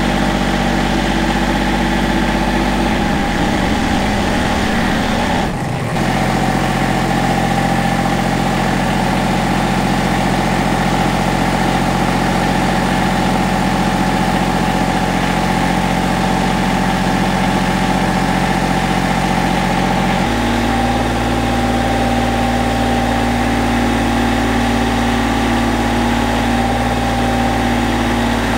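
Massey Ferguson GC1723E compact tractor's diesel engine running steadily while its front loader and pallet forks strain to lift a car shell that is too heavy for it. The engine note changes about three seconds in and again about twenty seconds in.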